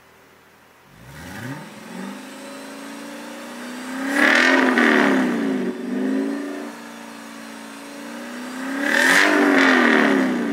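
Audi S5 B8's 4.2-litre V8 breathing through an Armytrix cat-back exhaust, revved while standing still. A short blip comes about a second in, then two long high revs, around four seconds in and again near the end, each falling back to a steady fast idle.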